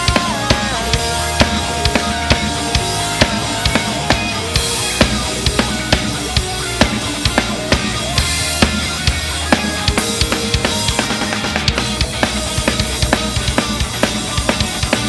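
Acoustic drum kit played hard and fast, with bass drum, snare and cymbal hits in a driving rock beat over the song's recorded backing track of sustained pitched instruments.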